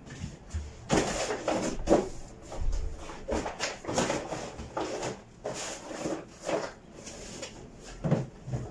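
Irregular scraping and rustling strokes with a few sharper knocks, about one or two a second, from someone working by hand close by.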